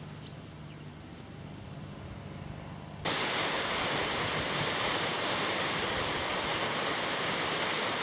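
Faint outdoor background with a low hum, then a sudden cut about three seconds in to the loud, steady rush of the Eas Mòr waterfall.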